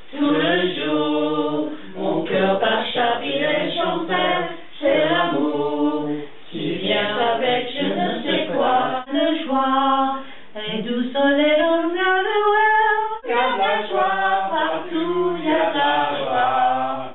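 A small group of men and women singing a song together, unaccompanied, with a long rising held note about two-thirds of the way through.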